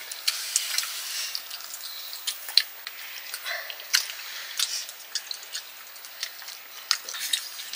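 Food cooking in a pot or pan: irregular small pops and crackles over a faint sizzling hiss.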